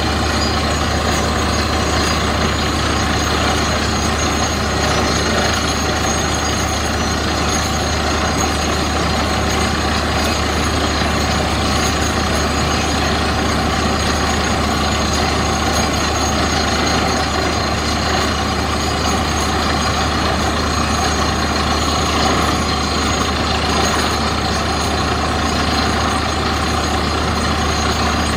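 Truck-mounted borewell drilling rig running steadily while drilling: a loud, unchanging drone of the rig's engine and air compressor, with the rushing noise of air blowing rock cuttings out of the bore.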